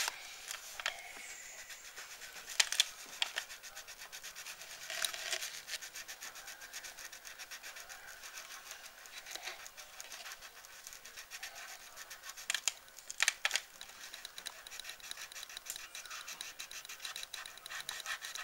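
Wax crayon scribbling back and forth on colouring-book paper: a fast, steady scratching of many short strokes, with a few louder taps now and then.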